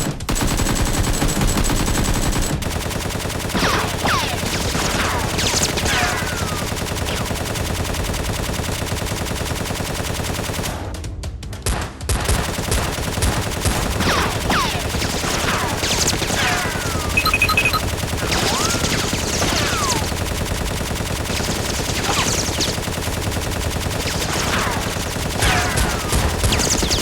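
Rapid gunfire sound effects in machine-gun-style bursts, with short falling whistles scattered through. There is a short lull about eleven seconds in.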